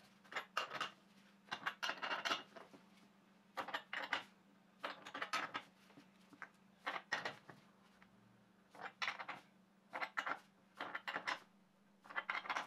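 A wrench turning the steel clamping frame's bolts as the glued end-grain board is clamped up, in about a dozen short bursts of metallic clicking at uneven intervals. A faint steady hum runs underneath.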